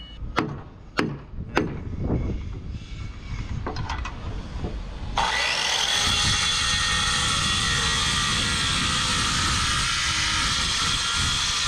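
Three sharp knocks on wood about half a second apart, then lighter taps. About five seconds in, an electric woodworking power tool starts abruptly and runs steadily.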